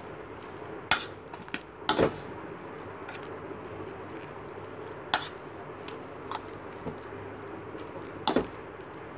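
A metal spoon mixing mashed roasted eggplant with chopped onion and green chilli in a plastic bowl. The spoon clacks sharply against the bowl a few times, loudest about one, two, five and eight seconds in.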